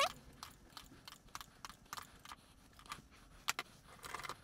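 Cleaning rod with a polish-coated bore mop being worked back and forth through an airgun barrel during barrel polishing: faint, irregular small clicks and scrapes, two or three a second, with a slightly louder scrape near the end.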